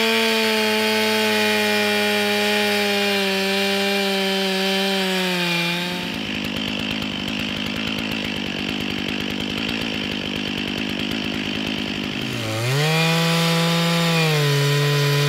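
Stihl two-stroke chainsaw running at full throttle, cutting low into a rotten pine stump, its engine note sagging slightly under load. For about six seconds in the middle the clear engine note gives way to a rough rasping cutting noise. Near the end the saw revs back up sharply.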